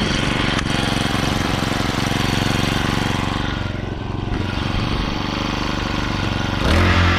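Small gas engine of a kayak motor running steadily just after being started, then getting louder near the end as it takes on more throttle.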